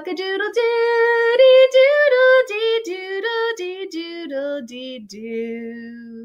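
A woman singing unaccompanied, imitating a rooster's crow in song: 'cock-a-doodle-doo-dee, doodle-dee, doodle-dee, doodle-dee-doo'. It ends on a long held low note.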